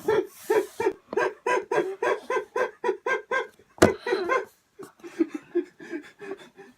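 A girl laughing hard in a long run of rapid, high-pitched pulses. There is a sharp click a little under four seconds in, and then the laughter goes softer.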